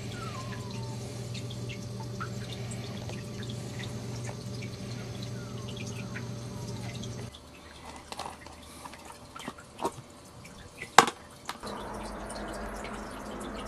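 Maltese puppy lapping water from a steel bowl: a run of small, irregular wet clicks over a steady low hum. A single sharp knock comes near the end.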